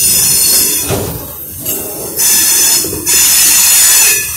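Freight train of autorack cars rolling past at close range: the noise of steel wheels on the rails, loud and steady, rising and falling in surges.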